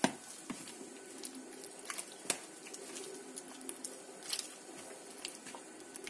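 Gloved hand squeezing and mashing margarine, raw egg and tahini in a plastic bowl: soft wet squishing, with a few light clicks scattered through it.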